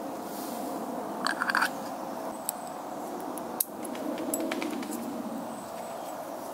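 Light metal clinks and clicks as a folding camping spoon is handled over a steel pot of coffee: a quick run of clinks about a second in, then single sharp clicks and a few softer ticks. A steady low hum underneath.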